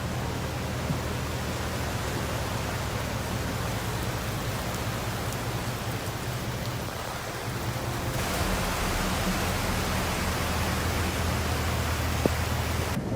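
Steady rushing hiss of heavy rain and floodwater, growing louder and brighter about eight seconds in.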